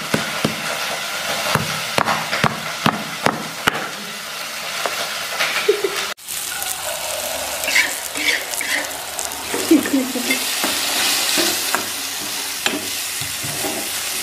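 Stone pestle pounding kluwek spice paste in a stone mortar, sharp knocks about two a second that thin out after about four seconds. About six seconds in this gives way to the spice paste sizzling as it fries in oil in a steel wok, stirred with a metal spatula, on the way to frying it until fragrant.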